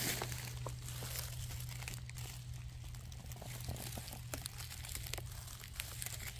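Crackling and rustling of dry forest-floor litter (leaves, twigs, moss) being disturbed, with many small irregular snaps, over a low steady hum.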